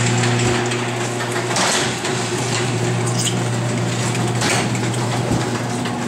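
Electric garage door opener running with a steady hum as the door rises, with a couple of brief scraping sounds.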